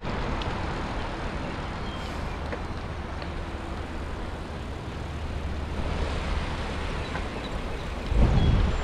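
Steady wind rumble on the microphone of a camera riding along a paved bike trail, mixed with the rush of riding, with a louder gust about eight seconds in.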